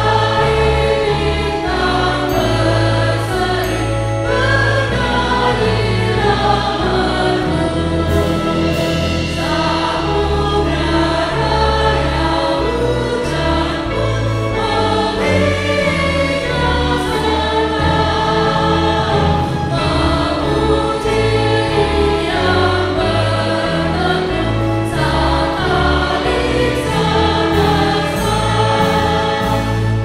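A large congregation singing a hymn in Indonesian, many voices in unison, over sustained low bass notes from an accompanying instrument that change with the chords.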